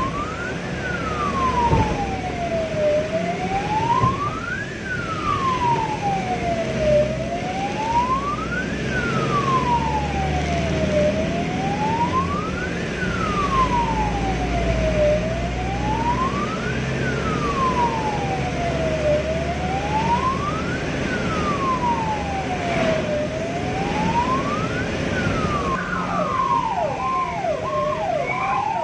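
Ambulance siren on an emergency run, wailing in a slow rise and fall about every four seconds over the vehicle's engine and road noise. Near the end, a faster pattern of quick falling sweeps joins in.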